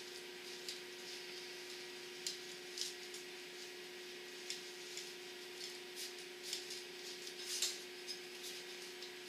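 Faint, scattered light clicks and taps from handling the kerosene heater's metal wick assembly, about ten over several seconds, over a steady low hum.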